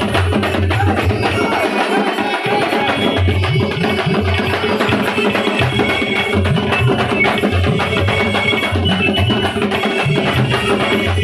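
Loud live drumming from a procession drum band, drums beaten with sticks in a steady, driving rhythm with a heavy low beat, and short high held notes over it from about three seconds in.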